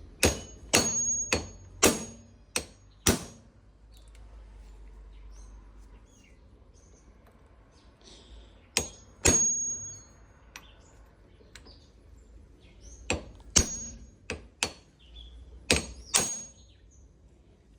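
Hammer blows on a truck's steering shaft universal joint, knocking it out of its yoke: sharp metal strikes, several with a high ring, in groups of two to four with pauses between.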